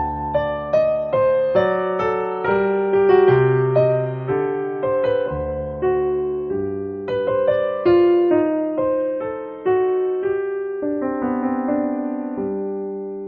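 Background music: a slow solo piano melody, single notes and chords struck about once or twice a second and left to ring, with the last chord fading out near the end.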